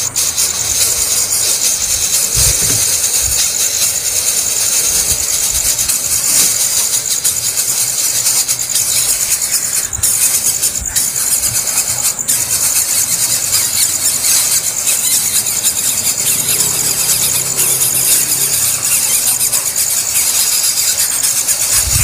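Nestling songbirds begging: a continuous, high-pitched, rapid shrill calling from chicks gaping in the nest.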